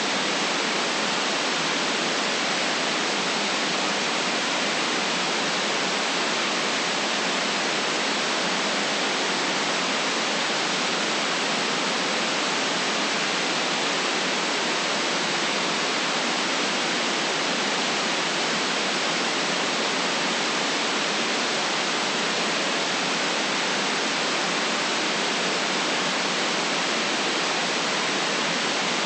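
Steady electronic white noise: an even, unchanging hiss with the deepest bass cut away.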